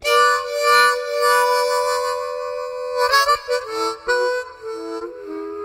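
Background music of sustained reed-like chords that start suddenly, move to new chords about three seconds in and again near four seconds, then hold.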